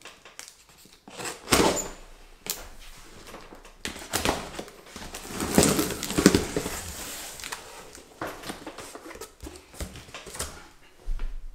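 A large cardboard shipping box being unsealed by hand: packing tape pulled off and the flaps folded open. It comes as a run of sharp scrapes and tearing sounds, densest in the middle.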